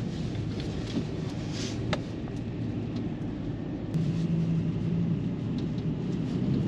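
Car driving slowly through snow, with a steady low engine and road rumble. The engine hum grows a little louder about four seconds in.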